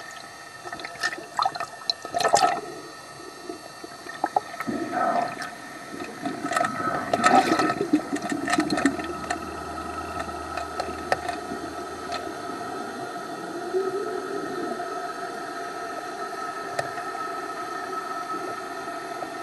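Water splashing and sloshing over a camera at the sea surface, in loud bursts over the first eight seconds, then a steadier muffled underwater wash with a steady hum, from the fishing boat's engine heard through the water.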